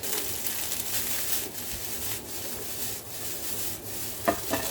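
Spatula scraping and stirring rice in a hot wok over a steady frying sizzle, with a couple of sharp clinks near the end.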